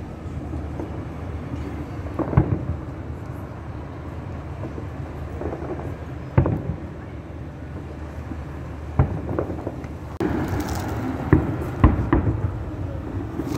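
Fireworks shells bursting overhead: separate booms a few seconds apart, coming closer together near the end, over a steady low rumble that grows louder about ten seconds in.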